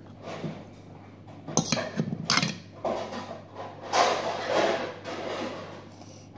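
Instant noodles being tipped out of a paper cup into a bowl, with dish clatter. There are three sharp knocks of cup against bowl about one and a half to two and a half seconds in, and a longer clatter about four seconds in.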